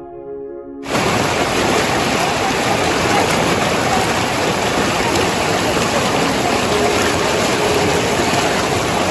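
Piano music for about the first second, then the loud rushing of river water pouring over a low rocky cascade. The water sound cuts in abruptly, holds steady, and cuts off suddenly at the end.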